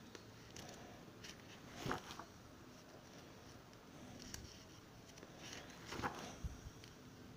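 Plastic sheet-protector pages of a ring binder being turned: two soft rustling swishes, about 2 seconds in and again about 6 seconds in.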